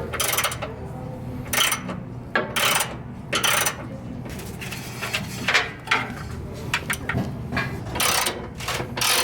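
Hand tool working on the metal fasteners of a vending machine's refrigeration deck: short, irregular bursts of ratchet-like clicking and scraping, one about every half second to a second, over a steady low hum.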